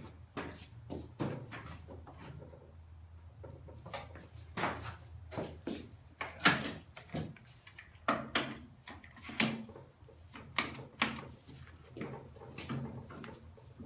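Irregular knocks, clunks and scrapes of handling at a table saw with the blade not running: the rip fence being slid and reset and the clamped 4x4 pieces moved for the next notch cut.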